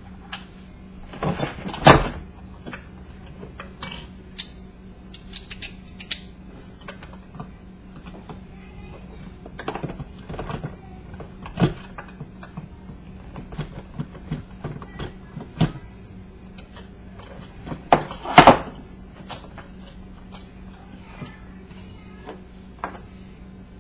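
Metal parts of an old ceiling fan clicking and knocking as it is handled and taken apart, with two louder clatters about two seconds in and near the end, over a faint steady hum.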